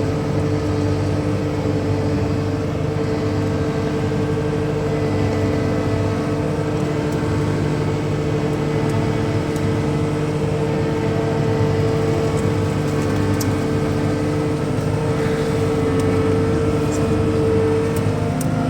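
Cat 259D skid steer's diesel engine running steadily under load, a constant drone whose pitch shifts near the end. A few faint clicks come through late on.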